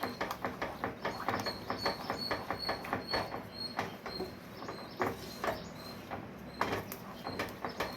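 Spoon stirring thick semolina halwa in a pan: quick rhythmic scraping and tapping strokes, about five a second, thinning out about four seconds in, with a louder knock about five seconds in and another near the end.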